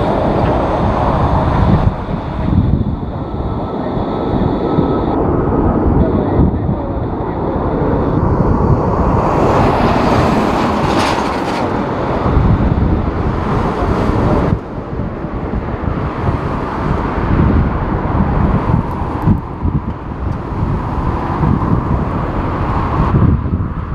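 Jet airliner engines rumbling, mixed with strong gusty wind buffeting the microphone. A faint steady high whine sits over the rumble for the first several seconds.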